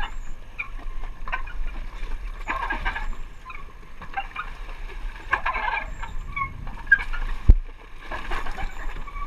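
Water sloshing and slapping against a moored jet ski's hull and the dock edge, in irregular surges over a low rumble. About seven and a half seconds in comes a single sharp thump, the loudest sound.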